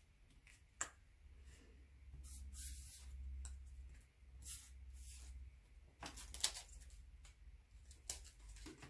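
Faint rustles and light taps of paper die-cut pieces being picked up, slid and laid onto a card. They come as several short scrapes, the loudest about six seconds in, over a low steady hum.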